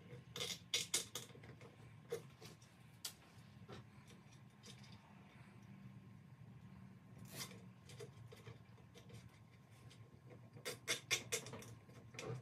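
Clusters of quick, faint plastic clicks from nylon zip ties being pulled tight around wiring on the laser engraver's aluminium frame, the busiest runs about half a second in and near the end, over a low steady hum.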